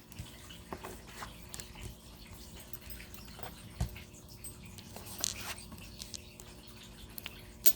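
Quiet handling noise from tarot cards: scattered light clicks and rustles, with a soft thump a little under four seconds in and a sharper click near the end.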